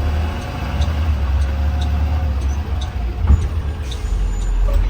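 2020 Blue Bird Vision school bus running on the road, with a steady low engine rumble. About two-thirds of the way in there is a single sharp knock, the loudest sound, and a light ticking about twice a second runs underneath.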